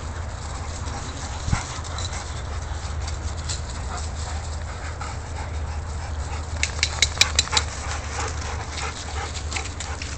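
Dogs panting and scuffling about while they play, with rustling and ticks from paws in dry leaves and grass. About seven seconds in there is a quick run of about five sharp clicks.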